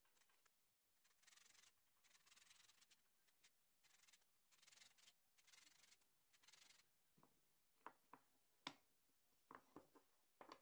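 Faint scraping strokes of a hand tool shaping the teeth of a small wooden gear, about ten short strokes in a row. They are followed by a few sharp wooden knocks as the pieces are handled and set down.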